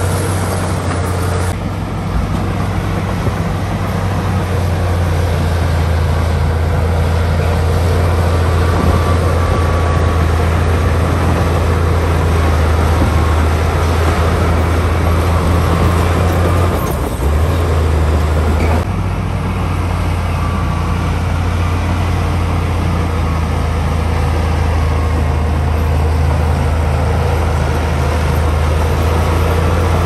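Crawler bulldozer's diesel engine running steadily under load as the blade pushes dirt, a deep steady hum throughout.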